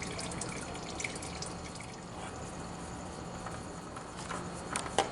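Used engine oil trickling and dripping steadily from a loosened oil filter and the open drain hole into a drain pan, with a light click near the end.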